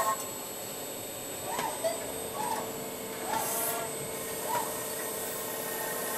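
Crankshaft milling machine running, its twin disc cutters machining a spinning crankshaft: a steady hum and whine with short rising-and-falling squeals every second or two, and a brief hiss about three and a half seconds in.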